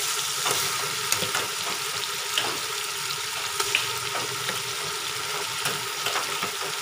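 Onions, tomatoes and chillies sizzling in hot oil in an aluminium pot, with a steel spoon stirring and giving short scattered clicks against the pot.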